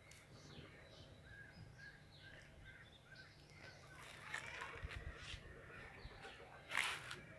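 Faint birdsong: many short chirps repeating, with a louder harsh call near the end.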